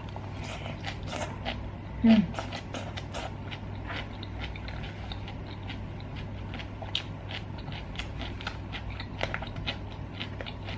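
Close-miked chewing of a mouthful of stir-fried rice cakes with pickled cabbage and celery: a steady run of small wet clicks and crunches. About two seconds in, a short falling hum of a voice stands out as the loudest sound.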